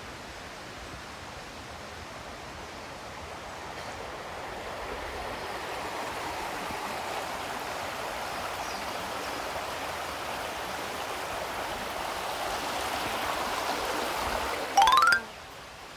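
Flowing stream water, a steady rushing that grows louder over the first half. Near the end a brief loud sound rising in pitch cuts in, and the water sound drops away suddenly.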